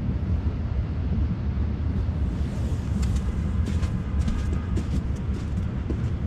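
A steady low rumble, with a few faint clicks about halfway through.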